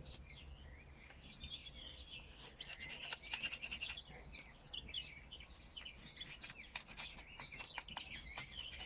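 Small piece of wood being scraped and rubbed down by hand in quick, uneven strokes, trimming it to fit. Birds chirp faintly behind.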